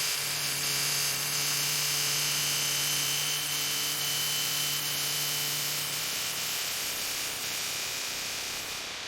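A steady hiss with a low, even mechanical hum under it; the lowest part of the hum drops out about six seconds in.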